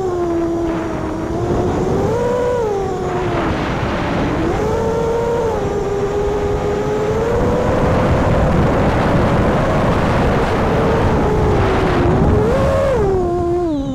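Quadcopter's Emax 2207 2400 Kv brushless motors whining, the pitch rising and falling with the throttle and dropping sharply near the end, over the rush of wind and propeller wash on the onboard camera's microphone.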